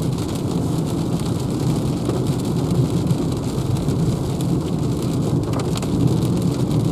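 Rain falling on the roof and windscreen of a Renault Zoe electric car, heard inside the cabin over a steady low rumble of tyres on the wet road, with no engine sound. The windscreen wipers sweep near the end.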